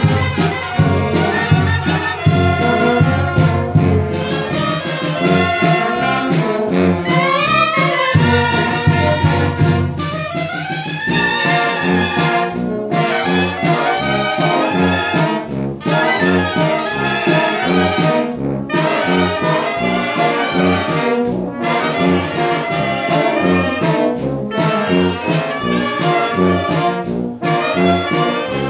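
Mexican wind band (banda de viento) playing, clarinets and saxophones carrying the melody over a steady pulsing bass. Rising runs sweep up about seven and again about eleven seconds in.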